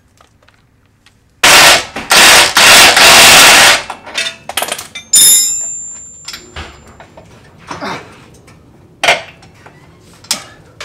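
Impact wrench hammering loudly in a few bursts for about two and a half seconds, breaking loose a suspension bolt on the Jeep's lower control arm. A few seconds in, a metal part clinks and rings briefly, followed by light clicks of tools and hardware.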